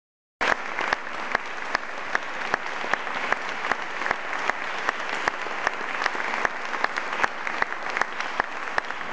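Audience applauding, with one clapper close by whose claps stand out steadily, about two and a half a second. The applause starts abruptly about half a second in.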